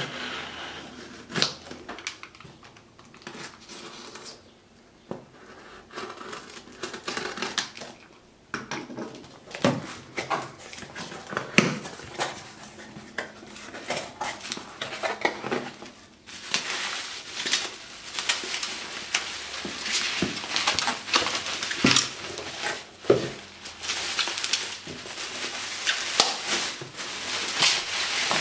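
Unboxing a cardboard shipping box: a utility knife cuts through packing tape and the cardboard flaps are pulled open, with scattered scrapes, clicks and knocks. From about halfway through, bubble wrap is handled and pulled off a package, crinkling densely and continuously.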